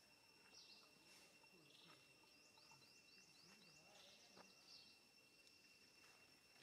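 Near silence: faint outdoor ambience with a steady high-pitched buzz of insects, and a quick run of about nine short, high, falling chirps around the middle.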